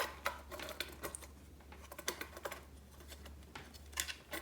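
Irregular light clicks and plastic taps of a power supply brick being handled and pushed into a 3D-printed plastic holder to test the fit, with a short cluster of clicks near the end.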